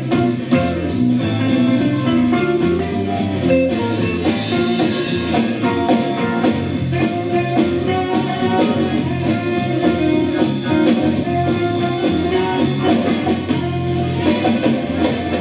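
Live band playing an instrumental jam in a jazzy, bluesy style: guitar over bass and drum kit.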